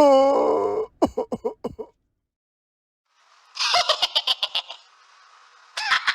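Cartoon laugh sound effects one after another. A pitched voice trails off into quick ha-ha pulses, then after a short pause comes a burst of fast, high-pitched laughter, and near the end another starts.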